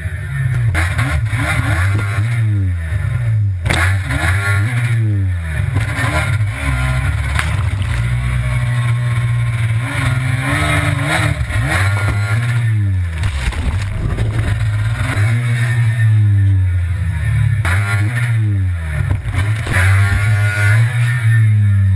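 Stand-up jet ski engine revving up and down over and over as the craft carves and jumps through surf, with rushing water and spray hiss underneath.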